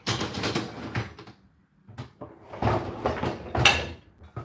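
Clattering and sliding as a dishwasher rack and the clean dishes in it are handled. The noise comes in two spells, with a sharp knock near the end.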